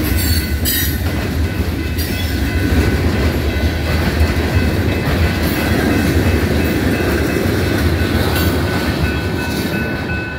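Freight train's boxcars and tank cars rolling past close by: a steady rumble of steel wheels on rail, with a few sharp clicks in the first second as wheels cross rail joints.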